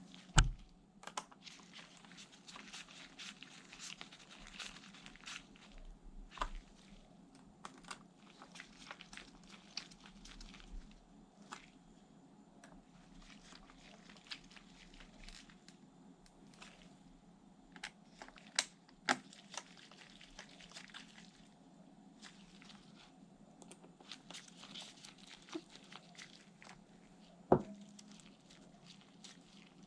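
Hands handling laptop parts and packaging: crinkling and rustling with many small clicks, and a few sharp knocks, one about half a second in, two close together around nineteen seconds in, and one near the end.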